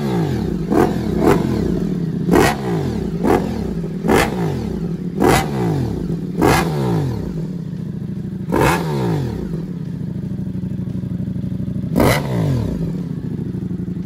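Ducati Multistrada V4's 1158 cc V4 engine idling and blipped to high revs about nine times, each blip dropping quickly back to idle, with longer gaps between blips toward the end. It runs through a QD Exhaust silencer with the catalytic converter removed (no-kat mid pipe) and no dB killer fitted.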